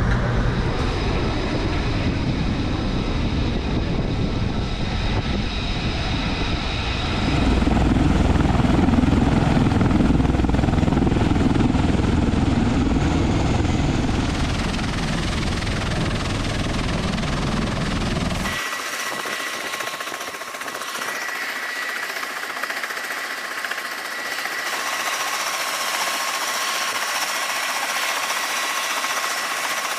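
A CMV-22B Osprey tiltrotor's turbine engines and rotors running: a heavy, low, steady noise that cuts off abruptly part-way through, leaving a steady high turbine whine over a hiss.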